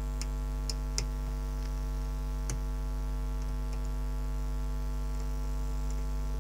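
Steady mains hum throughout, with a few faint metallic clicks and ticks of a lock pick working the pins of a camlock under tension, the clearest about one second and two and a half seconds in.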